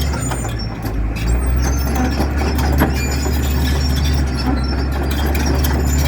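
Komatsu D65EX-15 bulldozer's diesel engine running steadily with a deep drone, with a few scattered metallic knocks, one near the end.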